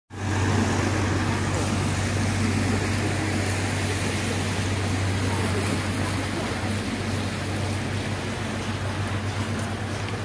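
Boat engine running with a steady low hum under a wash of noise, starting suddenly and holding level throughout.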